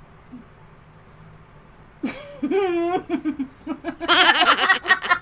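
A high, gliding squeal about two seconds in, then loud, rapid laughter that builds toward the end.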